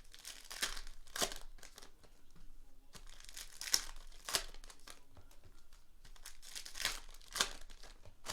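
Plastic wrapping of trading-card packs and boxes crinkling and tearing open, in a series of short crackly rustles.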